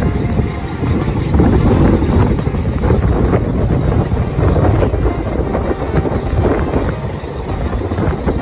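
Wind rushing over a phone microphone held out of the open window of a moving Bayerische Zugspitzbahn train, with the train's steady running rumble underneath.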